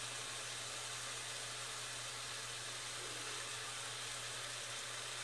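Ground-beef siopao filling sizzling steadily in a pan, as an even hiss with a low steady hum underneath.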